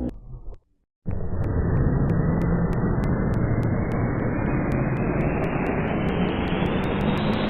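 Edited cartoon sneeze blast: after a short breath and a moment of silence, a loud rushing noise starts suddenly and grows steadily brighter and higher, with a regular clicking that speeds up.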